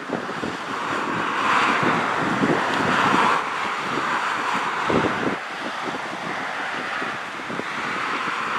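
Drone of a single-engine Cessna light plane's piston engine and propeller as it flies low past, with gusty wind buffeting the microphone.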